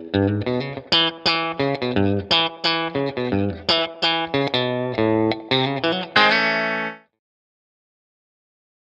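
Fender Japan TL-62 Telecaster electric guitar, fitted with upgraded pickups, playing a quick phrase of plucked single notes and chords, about three notes a second. It ends on a ringing chord that cuts off abruptly about seven seconds in.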